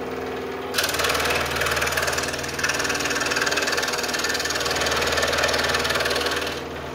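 Scroll saw running, then about a second in its reciprocating blade starts cutting into a wooden board, a louder, rapid rasping buzz that lasts about six seconds before the saw goes back to running unloaded near the end.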